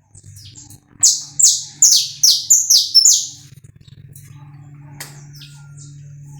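Saffron finch singing: about a second in, a loud run of about seven quick notes, each sliding down in pitch, followed by softer short chips. A steady low hum runs underneath.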